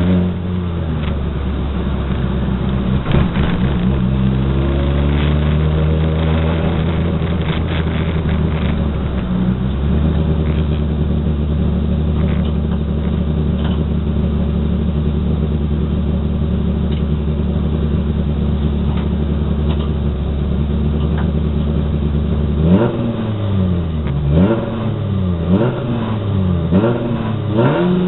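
Race car engine idling steadily, heard from inside the roll-caged cabin. About five seconds before the end it is revved in several quick throttle blips, the pitch rising and falling each time.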